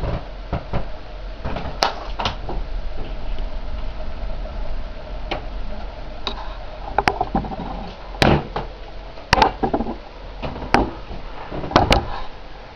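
Model train running on the layout: a steady motor hum with irregular sharp clicks and knocks over it.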